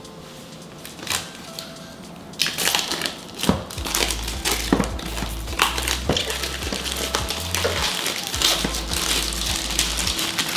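Clear plastic shrink-wrap being pulled off a small cardboard box and handled, a run of rustles with small knocks that starts about two and a half seconds in.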